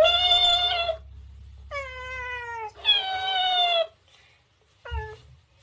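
A cat meowing and a mimicking talking-cactus toy repeating the meows back at a higher pitch. The result is a run of long, slightly falling meows, with a short one near the end.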